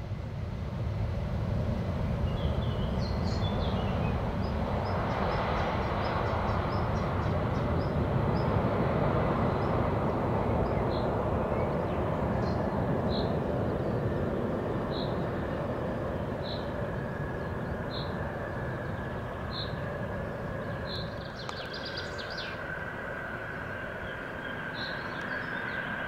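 Boeing KC707 tanker's four turbofan jet engines on landing approach: a steady low roar, with a high engine whine growing in during the second half. A bird chirps repeatedly, about once every second and a half, through the middle.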